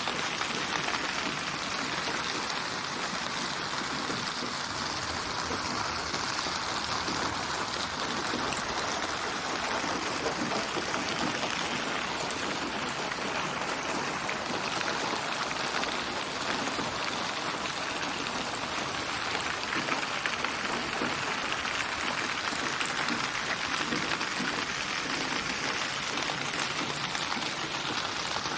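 Steady rain: an even hiss dotted with many small drop impacts, unchanging throughout.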